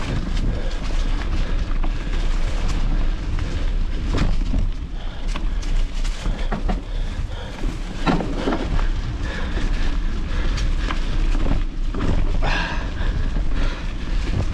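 Wind buffeting the microphone in a steady low rumble, with scattered sharp clicks and rattles throughout.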